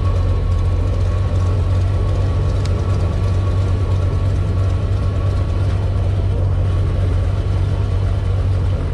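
Airboat engine and propeller running steadily, a loud deep hum.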